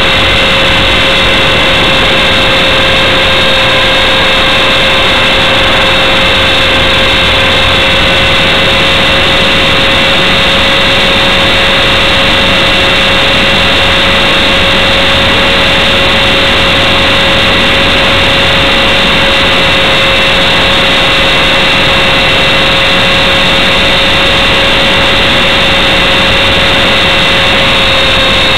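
Align T-Rex 450SE V2 electric RC helicopter heard from its on-board camera: the motor, gears and rotor make a steady whine with several held tones, nearly constant in pitch, as it hovers.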